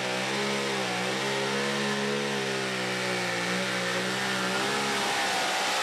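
Super modified pulling truck's engine running hard under load down the track, its pitch wavering slightly. About five seconds in, the steady engine note gives way to a rougher noise.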